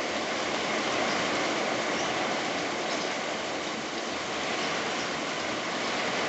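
Heavy rain pouring down in strong wind: a steady, dense hiss.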